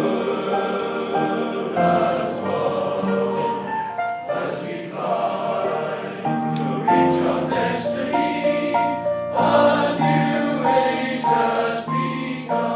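Welsh male voice choir singing in close harmony, holding sustained chords that move from one to the next every second or so.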